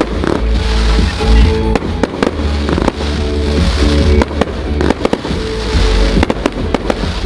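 Fireworks bursting in a run of sharp bangs at irregular intervals, over loud music with a heavy bass played through a sound system.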